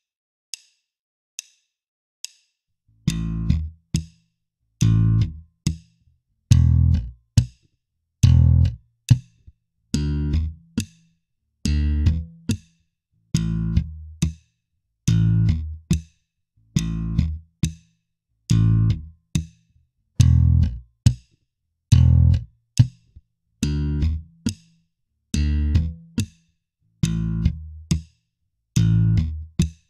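Slapped and popped Fender electric bass playing a 16th-note slap line at 80 BPM, the same short phrase repeated over and over with brief gaps between. It follows four metronome count-in clicks.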